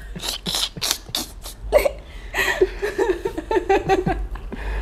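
A woman and a man laughing together: a quick run of breathy bursts, then broken voiced laughs.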